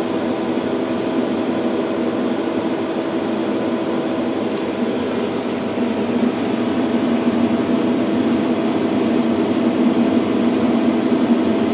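Steady hum and whir of a Phoenix 2000 prepress machine's fans and motors running as it boots, with a couple of level tones in it. About six seconds in it grows a little louder, with a lower drone coming up.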